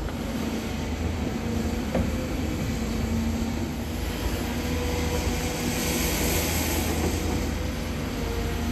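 Excavator engine running steadily under load, a low rumble with a steady hum.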